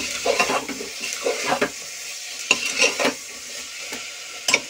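A metal spoon stirring and scraping peas, soya chunks and masala around a pressure cooker in irregular strokes, over a faint sizzle of frying. There is a sharp clink near the end.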